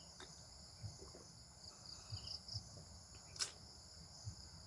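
Steady high chirring of crickets, with a few faint low knocks and one short sharp click a little after three seconds in.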